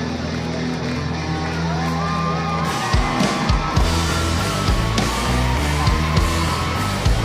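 Live rock-style worship band playing an instrumental passage. Held low chords carry the first few seconds, then the drums come in hard at about three seconds, under a high melody line that slides between notes.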